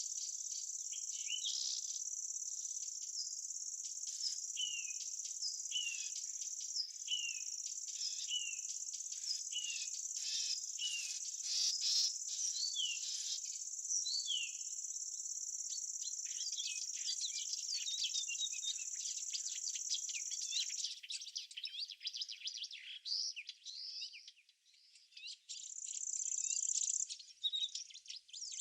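Insects trilling in a steady high-pitched chorus, typical of crickets or grasshoppers in summer vegetation, with a small bird giving a run of short, repeated descending chirps over the first half. About three-quarters of the way in the steady trill cuts out suddenly, leaving scattered faint chirps, then comes back in short stretches near the end.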